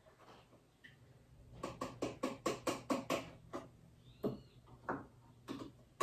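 Plastic laundry-product bottles and caps being handled at a washing machine: a quick run of small clicks and taps, about six a second, starting a moment in, then a brief high squeak about four seconds in and a few scattered taps.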